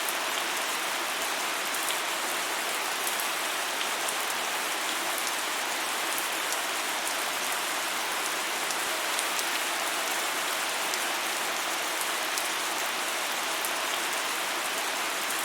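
Steady rain falling, an even hiss of rain with many small drop ticks on top, unchanging in strength.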